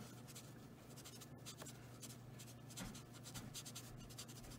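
Faint, irregular scratchy taps of an alcohol marker's tip dabbing small dots of colour onto paper.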